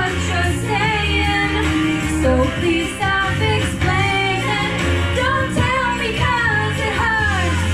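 A woman singing karaoke into a microphone over a recorded pop backing track with a steady, repeating bass line, heard through a lounge PA.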